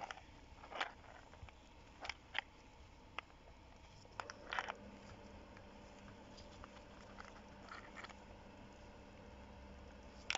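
Snail shells of Helix aspersa Maxima clicking and crunching against one another as a gloved hand stirs through a heap of live snails and picks some up: faint, scattered clicks at irregular moments, with a short cluster a little past the middle. A faint steady hum comes in about four and a half seconds in.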